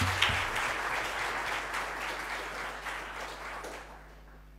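Audience applauding, the clapping thinning out and dying away over about four seconds. A brief low bump comes right at the start.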